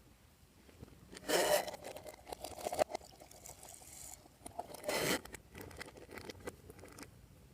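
Slime being mixed and worked by hand. Irregular handling noises, with two louder strokes about a second in and about five seconds in, and softer sticky sounds between and after.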